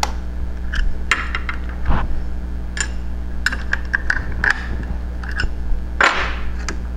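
Scattered small clicks and knocks of a laser engraver module being handled and removed from its mount on a CNC router, with a louder scraping rattle about six seconds in, over a steady low hum.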